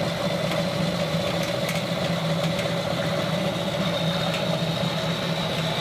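A motor running steadily: a constant low hum with a steady higher whine above it, unchanging throughout.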